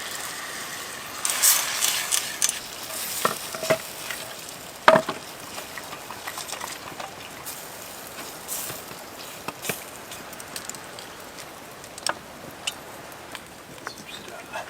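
Sizzling and crackling with scattered sharp clicks and taps, busiest and loudest in the first few seconds, then thinning out to occasional clicks.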